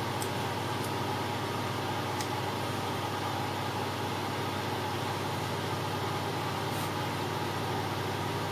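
Steady low background hum, even throughout, with three faint short clicks.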